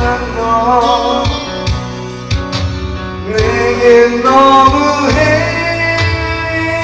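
Karaoke backing track of a band-arranged pop ballad playing loudly, with a man's voice singing a held, wavering melody over it.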